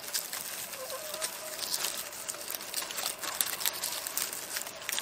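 Dry safflower seed heads crackling and rustling as fingers break them open to pull out the seeds, a run of small, irregular crackles.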